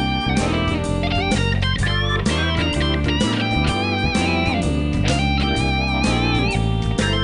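Background music: an electric guitar track with a steady bass line and notes bent with vibrato.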